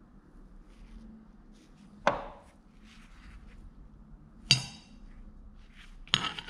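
Steel plate knocking against a steel bench vise while it is handled: three sharp metallic clanks with a short ring, about two seconds apart, the last a quick double.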